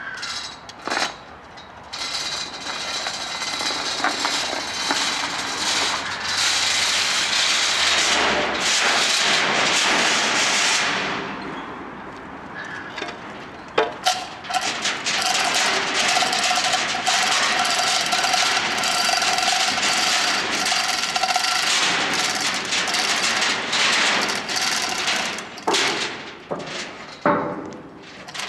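Hand chain hoist (chain block) being hauled to lift a gearbox: the steel chain rattles continuously through the block with clicking from the mechanism, easing off briefly partway through before the hauling resumes.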